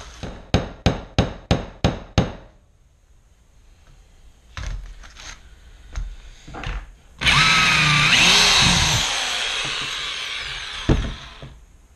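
A quick run of about seven sharp knocks, then a power drill running for about four seconds with its pitch sliding up and down as it turns a bit in a stripped, drilled-out injector screw on a Nissan VG33 fuel rail, getting the screw out.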